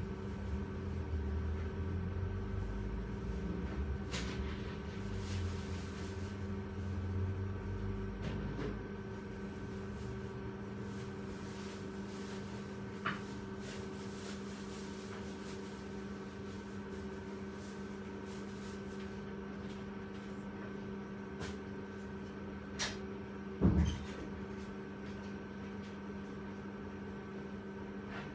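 Steady electrical hum of a quiet room, with a low rumble fading out after about nine seconds, a few faint clicks, and a short knock near the end that is the loudest sound.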